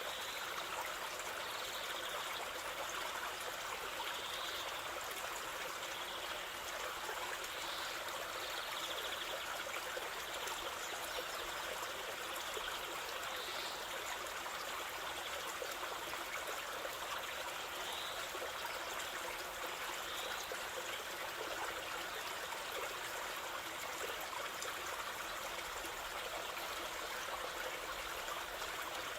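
Waterfall water rushing and splashing steadily, an even hiss without much low rumble.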